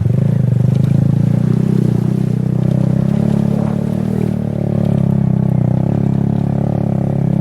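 A small engine running at a steady speed, a continuous low hum.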